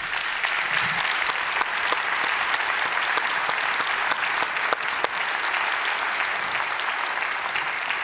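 Audience applauding: many hands clapping in a dense, steady patter that eases off slightly near the end.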